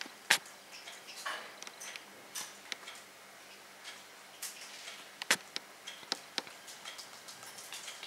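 Irregular light taps and clicks of a pet dove pecking at a hard counter top, with a few sharper taps among them.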